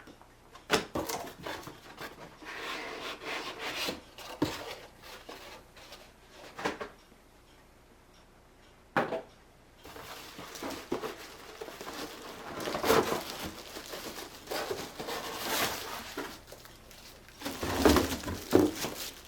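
Cardboard box and packing materials being handled: irregular rustling, scraping and knocks, with a short lull in the middle and a cluster of louder knocks near the end.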